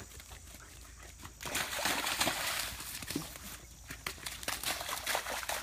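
Golden retriever puppy splashing and scrabbling through a muddy puddle, a dense burst of splashing about a second and a half in that lasts about two seconds, followed by lighter scattered rustles and steps in the wet grass.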